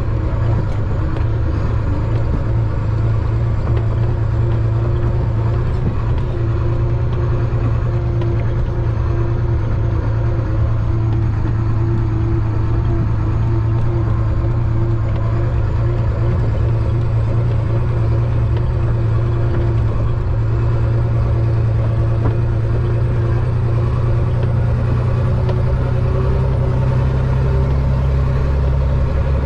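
Diesel engine of a Chenglong concrete mixer truck running steadily under way, a constant low drone. Near the end the engine note drops lower.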